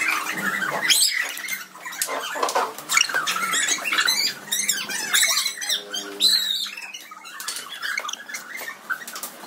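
Several people shrieking and squealing in excitement as they dodge about, with shoes squeaking and scuffing on a tiled floor.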